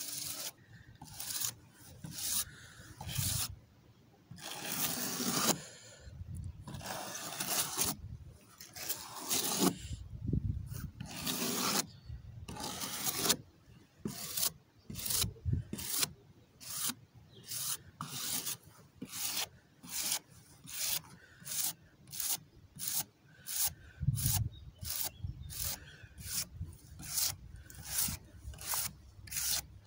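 Steel wire brush scrubbing wet, fire-charred wooden boards. There are a few long, slow strokes at first, then from about halfway a steady back-and-forth of about two strokes a second. The brushing strips off the loose charred layer and brings out the grain of the burned wood.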